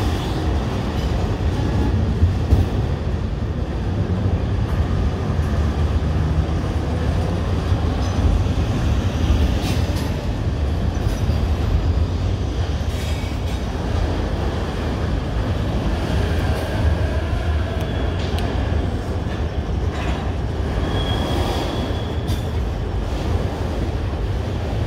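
Long freight train of autorack cars rolling past on the rails: a steady low rumble of wheels with scattered clicks, and a brief high wheel squeal near the end.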